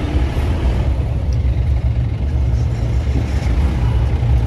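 Mahindra jeep's engine running through an aftermarket SC Project exhaust while driving, a steady deep low rumble.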